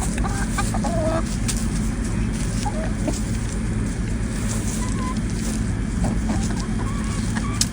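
A flock of chickens clucking in short, scattered calls while they eat carrots, over a steady rushing noise of a waterfall.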